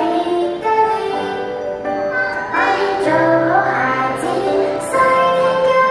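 A song playing: a sung melody over instrumental backing music.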